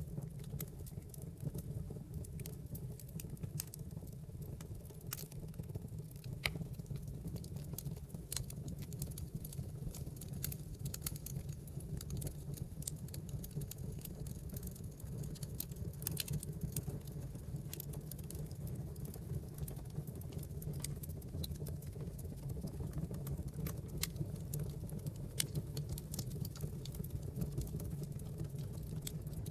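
Wood fire burning in a fireplace: a steady low rumble of the flames with irregular sharp crackles and small pops from the burning logs.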